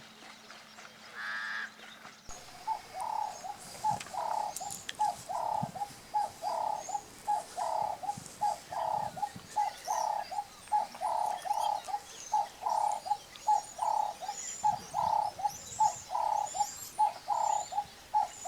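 A bird calling in a long, even run of short low notes, about two a second, starting about two seconds in, with fainter high chirps of small birds around it.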